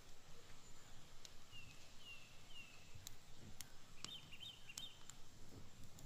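Log campfire crackling, with scattered sharp pops. A bird calls over it: three short falling chirps, then a warbling call about four seconds in.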